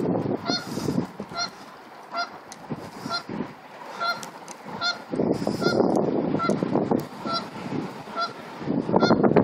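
Canada goose honking over and over, a little more than one honk a second, with loud bursts of low rushing noise at times, about five seconds in and again near the end.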